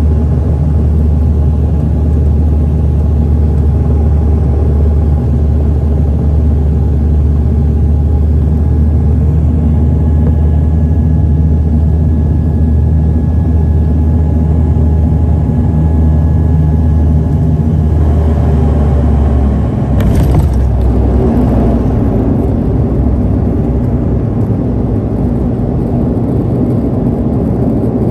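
Cabin drone of a propeller airliner on final approach, a strong low engine drone with steady propeller tones that fall away about 18 s in as power comes back. About 20 s in the main wheels touch down with a sharp thump, followed by a louder, rougher rumble of the landing roll on the runway.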